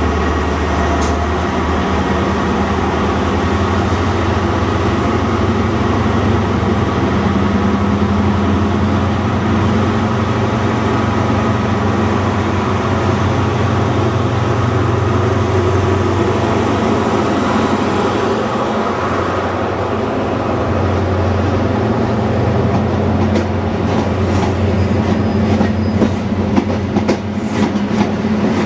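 Diesel engine of a Class 43 High Speed Train power car running with a steady low drone as the train moves slowly past. Near the end the coaches' wheels click over the rail joints.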